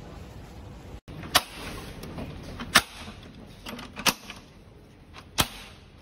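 Four short, sharp clicks about a second and a third apart as LED display cabinet fittings are snapped into place by hand, with quieter handling noise between. Steady low background noise fills the first second, before a cut.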